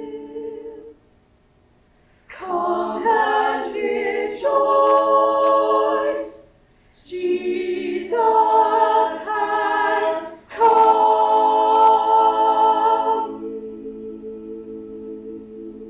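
Girls' choir singing a cappella in sustained chords, phrase by phrase with two short breaks. It ends on a long held chord that fades away near the end.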